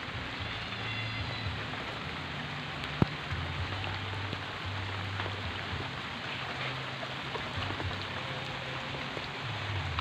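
Steady rain falling, a continuous even hiss, with one sharp tap about three seconds in.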